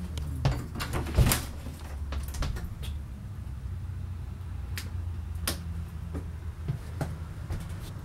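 A series of sharp clicks and knocks from an RV's interior door and its latch being handled, the loudest about a second in, over a steady low hum.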